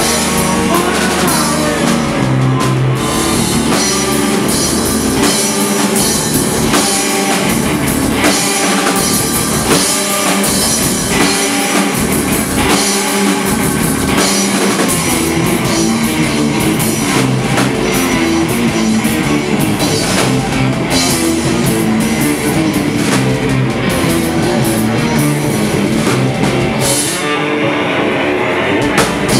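Stoner rock band playing live and loud: heavy electric guitars over a drum kit, with no vocals.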